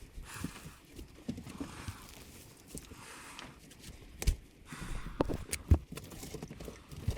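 Irregular knocks and scuffs, with the sharpest knocks about four and five and a half seconds in.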